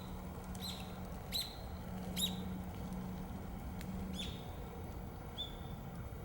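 Self-noise from a cheap digital camera: a handful of short, high squeaky chirps over a few seconds on top of a steady low hum.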